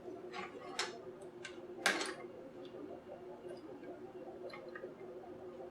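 A few light clicks and taps from small parts and tools being handled during a Bluetooth speaker teardown, the sharpest about two seconds in, over a steady low hum.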